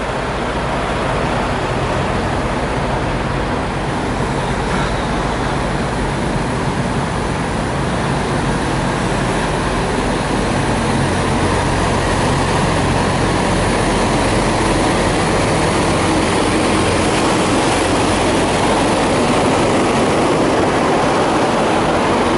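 Diesel engines of parked semi-trucks idling: a steady low hum with a broad rumble over it, slowly growing louder.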